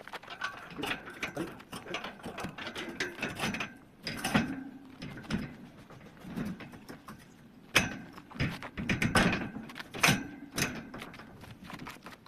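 Irregular metallic clicks, knocks and clanks of work with tools and metal parts, some strikes ringing briefly.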